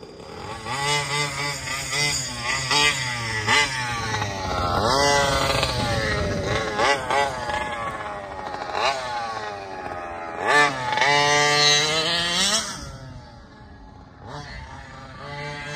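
Raminator RC monster truck's small engine revving up and down repeatedly as it drives, each burst of throttle sweeping the pitch up and back, easing off to a lower, quieter run near the end.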